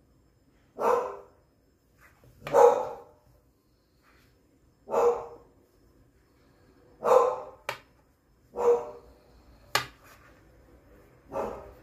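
A dog barking: six single barks a couple of seconds apart, with two sharp clicks between the later barks.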